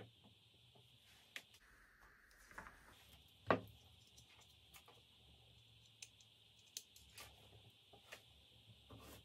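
Light clicks and knocks of a small speaker driver and connector wires being handled on a workbench, over a faint steady hiss and hum. The loudest knock comes about three and a half seconds in.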